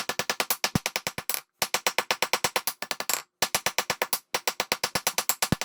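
Rapid, evenly spaced hammer blows on hot steel on the anvil, about nine a second, in runs broken by brief pauses, as a railroad spike's shaft is rounded off and drawn out.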